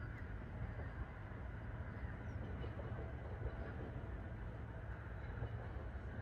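Jet airliner passing high overhead, its engines a steady, distant low rumble.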